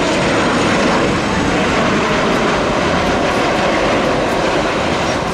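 Jet engines of a Boeing 737-800 airliner (twin CFM56 turbofans) running at the runway, a steady, loud rush of engine noise.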